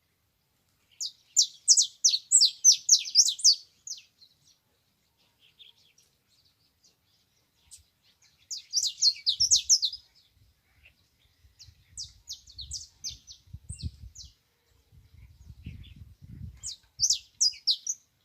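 Domestic canary twittering in four short bursts of rapid, high chirping notes. Low muffled thuds run underneath through the second half.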